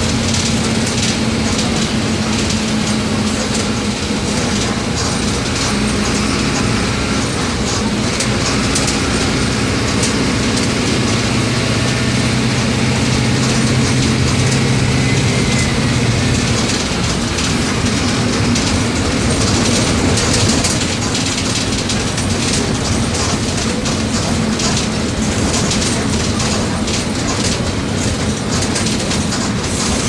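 Mercedes-Benz OM-924 LA 218 hp four-cylinder inline diesel of an OF-1722M city bus running on the move, with rattling and clicking. The engine's pitch shifts as it changes speed, and its low note drops away about seventeen seconds in.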